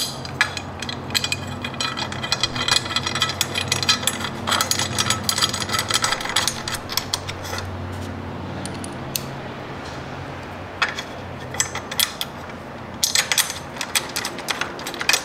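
Hand ratchet clicking in short runs, with small metal clinks, as the Allen-head bolts holding a motorcycle rearset to the frame are run in.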